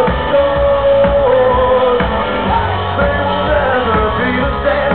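Rock band performing live with a lead singer, heard from the audience floor. A long sung note is held for about the first two seconds before the melody moves on over the full band.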